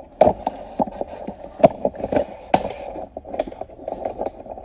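Irregular sharp knocks and clicks, a dozen or so at uneven spacing, of hard objects being handled and set down.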